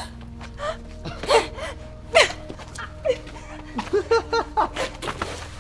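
Sharp gasps and short strained cries of a struggle, with a quick run of them about four seconds in, over a low sustained music drone.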